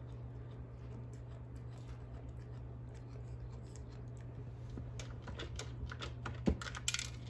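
Light clicks and rattles from a cat pawing at an automatic pet feeder's crank and the dry food inside, growing busier in the second half, with a sharp knock about six and a half seconds in and a short rattle just after it. A steady low hum runs underneath.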